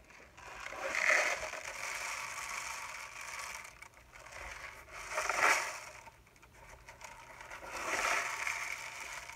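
Homemade rain stick (a paper towel tube holding a tablespoon of dry rice and coiled aluminium foil spirals) tipped end over end three times. Each turn sends the rice pattering down through the foil in a rush that swells and fades over a couple of seconds.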